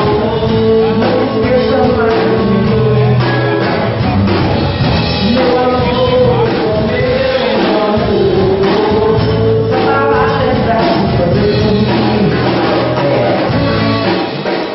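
Live band music: acoustic guitars and a drum kit with a singing voice carrying the melody.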